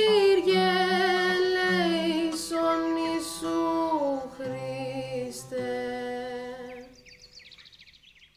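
Slow music: a held melody with a wavering vibrato over low sustained notes, stepping down in pitch and fading out about seven seconds in. Faint bird chirps are left near the end.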